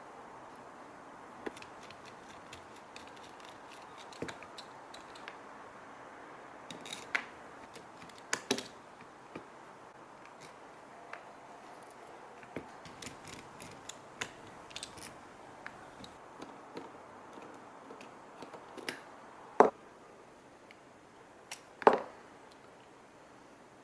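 Scattered small clicks and knocks of hand tools and small metal parts being handled during work on an air compressor's pressure switch, with two sharper knocks near the end.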